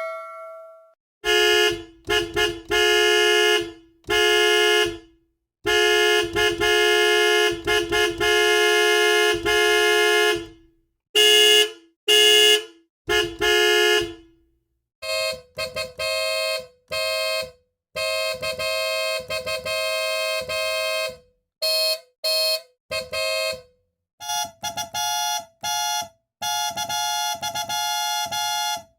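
Car horns honking in a series of short taps and longer held blasts. A loud, lower-pitched horn sounds through the first half, then a quieter, higher-pitched horn takes over, and a still higher one near the end.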